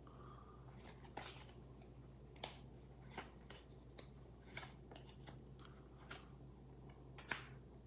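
Faint, scattered soft clicks and rustles of Pokémon trading cards and a booster-pack wrapper being handled, over a low steady hum.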